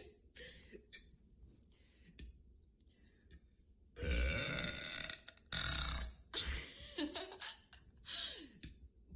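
A woman burping loudly, four big burps in quick succession starting about four seconds in, the first the longest. A few short sharp clicks come before and between them.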